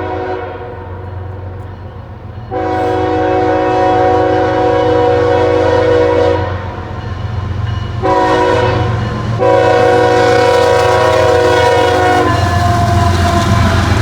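Approaching CSX freight locomotive sounding its multi-note air horn in three blasts: a long one, a short one, then another long one. A steady low engine and train rumble runs underneath and carries on after the horn stops near the end.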